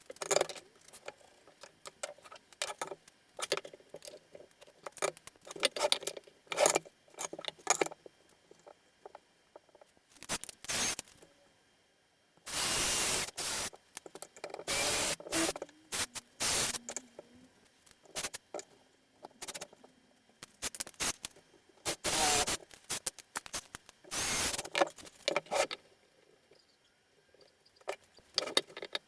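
Workshop handling sounds: repeated light clinks and knocks of small hard parts, broken by five bursts of scraping or hissing noise, each about a second long.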